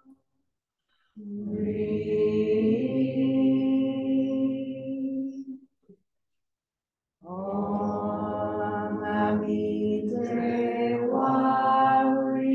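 A woman and a man chanting a Buddhist devotional chant together in long held notes. There are two phrases, each stepping up in pitch partway through, with a pause of about a second and a half between them.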